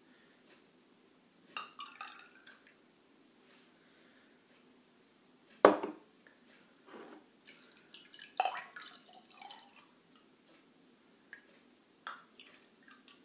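Milk mixture ladled from a glass bowl into small glass yogurt jars: dribbling liquid and light clinks of glass, with a sharp knock about five and a half seconds in as a filled jar is set down on the table.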